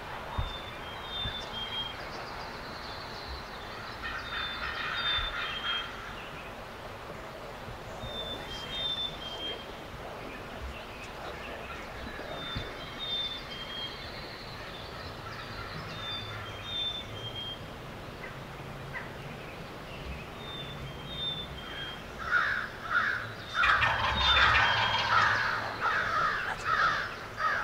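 Wild turkey gobbling: one burst a few seconds in and a louder run of gobbles near the end. A songbird repeats a short high phrase about every four seconds throughout.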